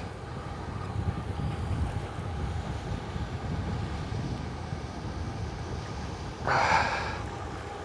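Wind buffeting the microphone, a steady low rumble, with a short burst of noise about six and a half seconds in.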